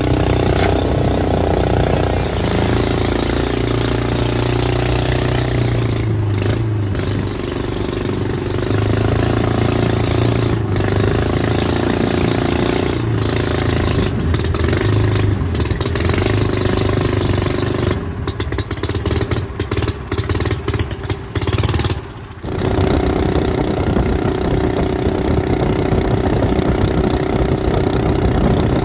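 The 15 hp four-stroke engine of a Mud-Skipper Feather Lite surface drive mud motor running under way, pushing a jon boat. Its steady note shifts in pitch now and then, and about two-thirds through the sound breaks up in a quick run of short gaps.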